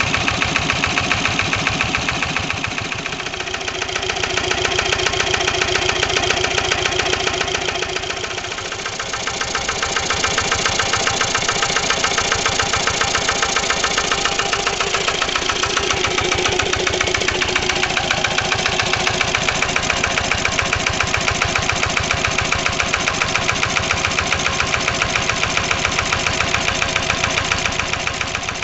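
Vintage Lister single-cylinder air-cooled stationary diesel engines, a 1983 LT1 close up with a 1955 LD1 alongside, running steadily with a fast, even firing beat.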